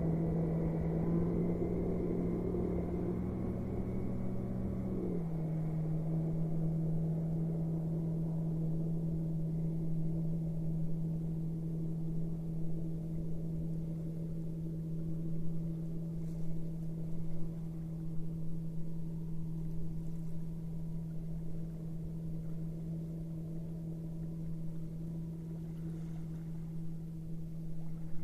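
Boat motor running steadily at one pitch, stepping slightly lower about five seconds in. For the first few seconds a passing turboprop aircraft is heard fading away beneath it.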